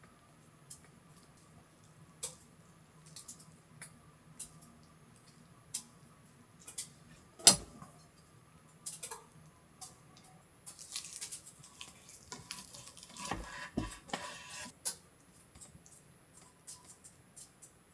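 Kitchenware handled during cooking: scattered light clinks and taps of utensils and dishes, one sharp louder knock about seven and a half seconds in, and a stretch of rustling and scraping a little past the middle.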